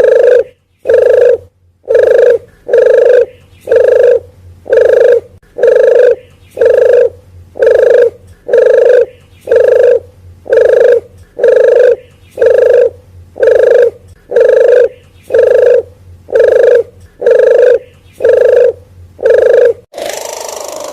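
Red collared dove (puter geni) lure call: short cooing notes repeated at an even pace, about one a second, used to call wild doves in.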